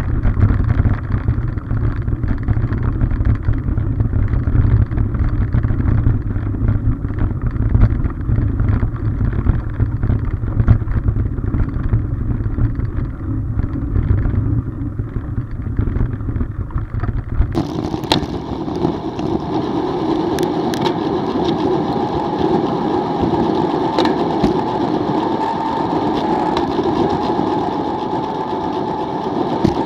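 Mountain bike ridden over a dirt trail, heard through an action camera's microphone as wind rumble and tyre noise. About halfway through, the sound changes abruptly to a higher, steadier hum with occasional sharp clicks, where the ride is played at triple speed.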